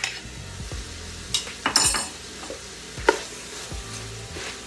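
Diced onions going into a stainless steel pot of browning sausage and stirred in with a wooden spatula: a steady sizzle of frying, with scraping and a few sharp knocks of utensils against the pot and bowl. The loudest knocks, with a brief metallic ring, come about two seconds in, and another about three seconds in.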